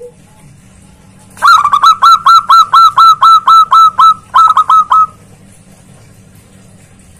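Zebra dove (perkutut) calling loudly: a rapid run of short, sharp, down-hooked notes, about four or five a second, starting about a second and a half in, with a brief break before the last few notes.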